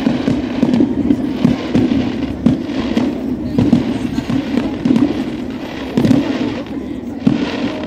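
Aerial fireworks shells bursting in quick succession: an irregular string of booms, about two a second.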